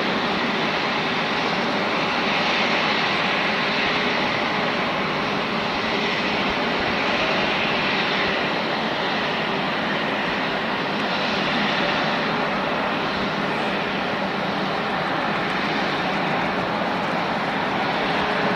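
Jet engines of a Japan Airlines Airbus A350, Rolls-Royce Trent XWB turbofans, running with a steady, even hiss and a faint held hum.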